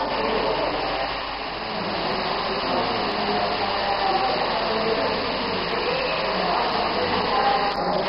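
Water falling steadily through a rain-machine art installation, a continuous rushing hiss.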